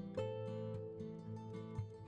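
Background music: acoustic guitar playing notes and strums.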